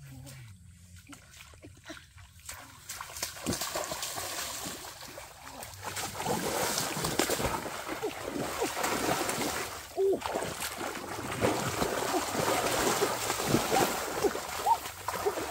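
Shallow muddy pond water splashing and churning as a person thrashes through it on hands and knees, groping for fish by hand. It starts faint, builds from about three seconds in, and becomes a loud, continuous splashing with sharp slaps for the last half.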